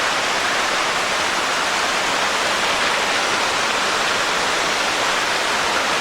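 Small waterfall's water rushing steadily, a constant loud hiss with no breaks.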